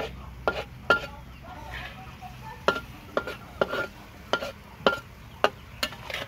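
Metal spatula clanking and scraping against a large iron wok as beef is stir-fried, about ten sharp clanks at roughly two a second, over a low sizzle.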